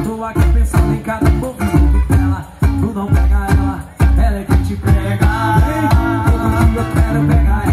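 Live band music played through a PA: a steady cajón beat under strummed acoustic string instruments, with singing.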